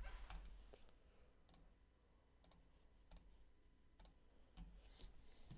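Near silence, with a handful of faint, irregularly spaced clicks from a computer mouse and keyboard.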